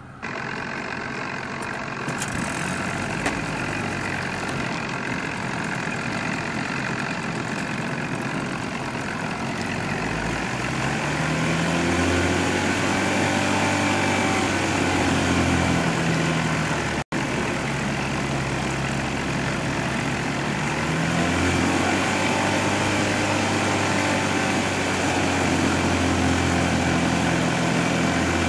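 An engine running close by, its pitch rising, holding and falling in two long spells, with a momentary dropout about halfway through.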